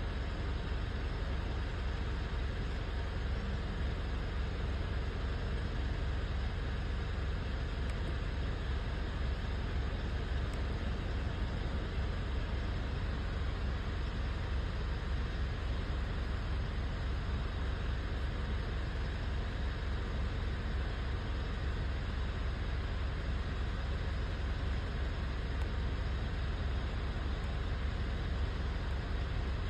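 Mitsubishi Triton engine running steadily with a low, pulsing rumble; this is the engine that has a misfire.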